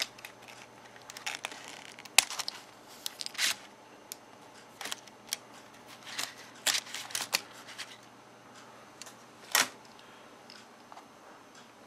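Scattered light plastic clicks and taps as a plastic pry tool flips up the ribbon-cable connector latches on a Dell Latitude D430 laptop and the old keyboard is handled and lifted away, with one louder click late on.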